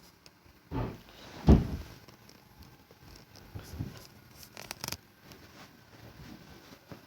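Two dull bangs about a second in, half a second apart, the second louder, followed by fainter knocks and a quick run of clicks.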